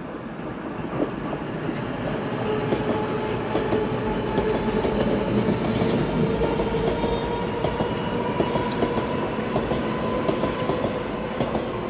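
Metro train passing close on surface track. Its wheels clatter over the rail joints under a steady running noise that grows louder over the first few seconds. Its motors give a whine that rises slightly in pitch.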